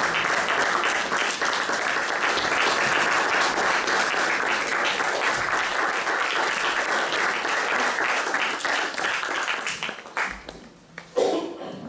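Concert audience applauding with steady, dense clapping that dies away about ten seconds in. A brief, louder single sound follows near the end.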